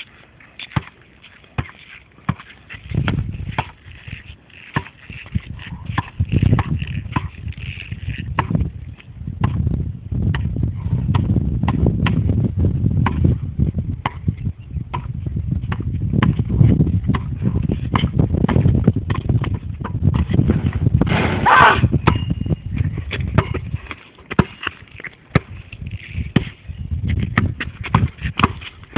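Basketball being dribbled: a run of sharp, irregular bounces, two to three a second, with a low rumble under most of it.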